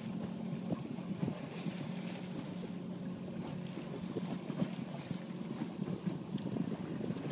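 Water lapping and splashing irregularly against the hull of a Hobie Adventure Island sailing kayak under way, with wind on the microphone.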